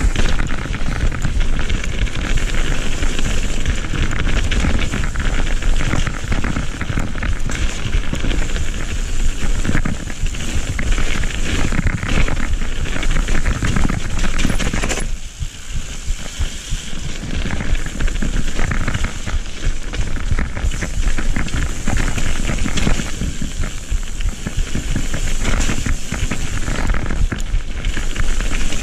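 Mountain bike riding fast down a dirt and gravel trail: tyres and frame clattering and crackling over the rough ground, with wind rushing over the body-worn camera's microphone. The noise eases briefly about halfway through, then picks up again.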